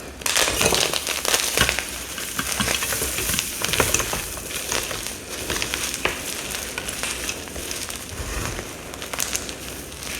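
Compressed mica powder bombs crushed and crumbled in the hands: a dense, crunchy crackle, loudest in the first couple of seconds.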